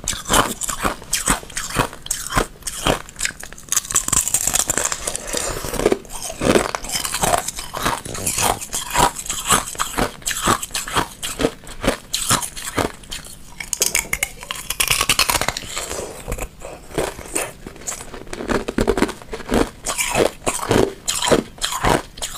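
Thin ice being bitten and chewed: a dense, irregular run of sharp crunches and crackles.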